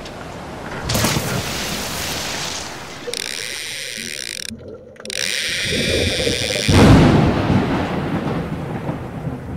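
Intro sound effects: a rush of noise swells about a second in, then a harsher, buzzier stretch broken by a short gap. A deep boom just before seven seconds is the loudest moment and fades out.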